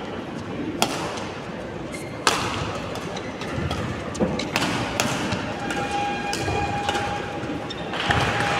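Badminton rackets striking the shuttlecock during a rally: several sharp cracks a second or two apart, over the steady hum of the hall.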